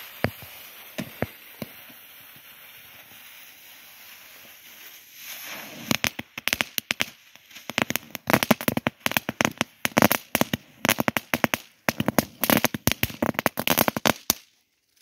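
Children's jumping-frog firecracker (žabák) going off: a steady hiss for about five seconds as its fuse burns, then a rapid, irregular string of small sharp bangs for about nine seconds that stops abruptly just before the end.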